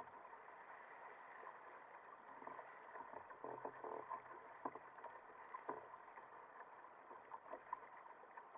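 Faint steady rush of water against a sailing kayak's hull and outrigger floats under way in choppy sea, with a few sharper splashes or slaps in the middle and near the end.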